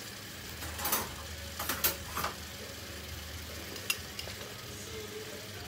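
Curry sauce simmering and sizzling in a frying pan, with a few light clicks about one, two and four seconds in.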